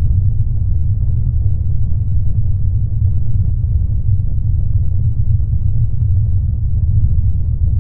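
A ship's engine running: a steady, unbroken low rumble.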